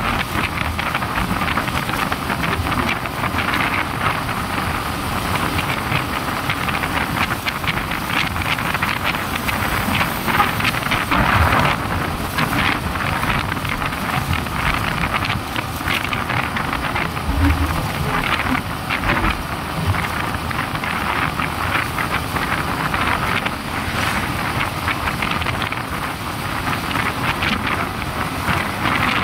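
Steady wind rush on the microphone of a moving motorcycle, mixed with the motorcycle's running and road noise while cruising.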